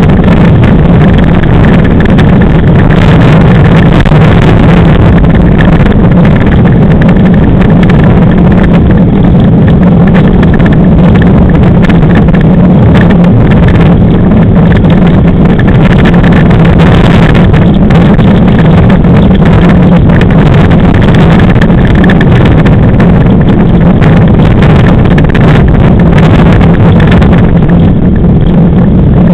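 Sail-driven Class 5 land yacht running fast over a dry salt-lake crust, heard from a camera mounted on its frame: a loud, unbroken rush of wind on the microphone mixed with the rumble of its wheels, over a steady low hum.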